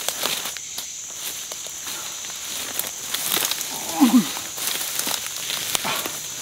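Brush rustling and twigs snapping as a heavy dead wild hog is hauled through undergrowth, over a steady chorus of night insects. A brief low grunt about four seconds in.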